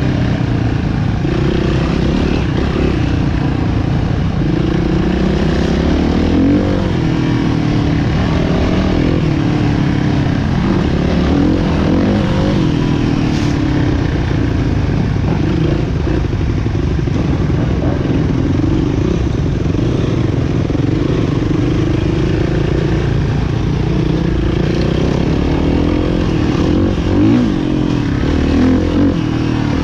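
Motocross bikes' engines revving, their pitch rising and falling again and again through gear changes and throttle.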